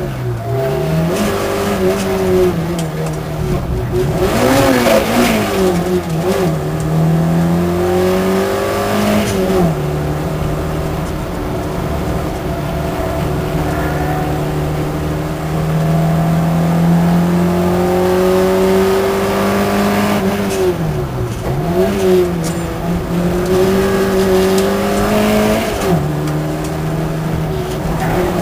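Sprint car's engine heard from inside the cabin while it is driven hard around a circuit. The pitch holds steady on the longer stretches and several times drops sharply and climbs again, with gear changes and braking for corners, over steady road and wind noise.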